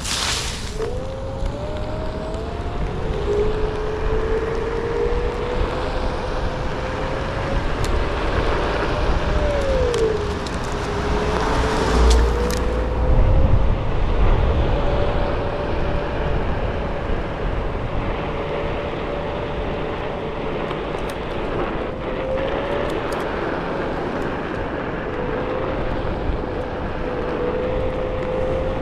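Hub motor of a DIY VESC-controlled Onewheel whining under a rider, its pitch gliding up and down with speed, over a steady rumble of the tyre rolling on asphalt. A burst of rustling right at the start as the board rolls through dry leaves, and a low buffeting about twelve seconds in.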